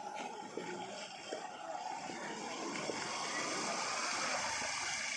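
Floodwater running, a steady rushing that grows a little louder toward the end.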